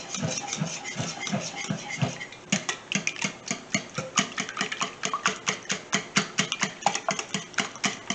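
Wire whisk beating raw eggs in a ceramic mixing bowl: rhythmic sloshing strokes, turning about two and a half seconds in into fast, even clicking as the wires strike the bowl, about five strokes a second.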